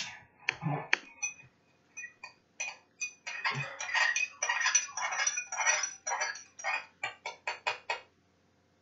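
A spoon stirring in a glass of water and clinking against its sides: a run of quick clinks that come faster near the end. It is mixing a candy-beer mix into the water.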